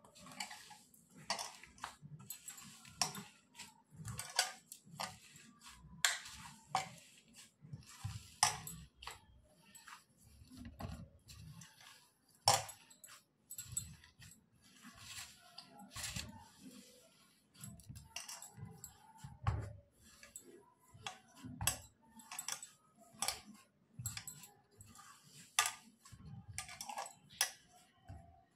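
A hand mixing and mashing spiced boiled potato in a stainless steel kadhai: irregular clinks and knocks against the steel, about one or two a second, over soft low thuds.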